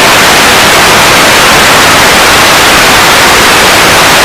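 TV static: a loud, steady hiss of white noise, as from a television that has lost its signal.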